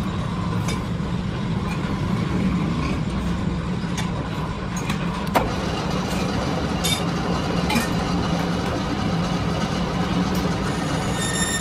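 Metal lathe running steadily with a boring bar working inside the bore of an iron helical gear blank: a low even hum with a few light ticks, the sharpest about five seconds in.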